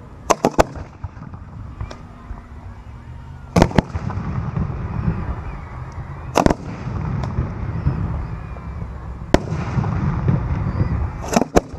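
Professional aerial fireworks shells firing and bursting: sharp bangs in small clusters about every three seconds, with a low rumble between them.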